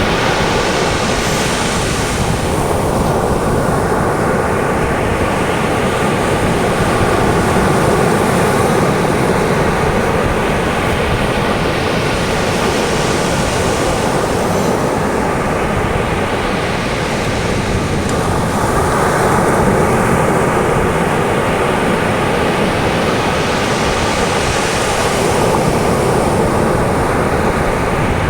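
Caribbean surf on a sandy beach: a continuous rush of waves, with a louder breaker washing in every ten seconds or so.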